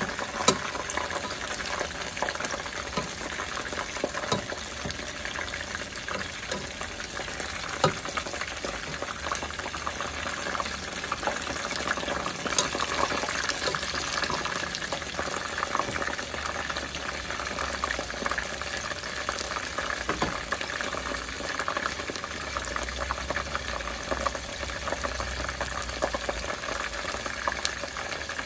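Battered okra deep-frying in hot oil in a pot: a steady sizzle full of fine crackles. A few sharp clicks come from tongs knocking against the pot as the pieces are turned, the loudest about half a second in and around 8 seconds.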